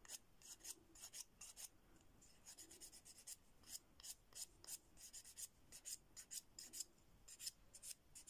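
Very fine-grit nail file rubbing back and forth across a fingernail, faint quick strokes about four a second. The nail surface is being smoothed with the file in place of a buffer, readying it for a new coat.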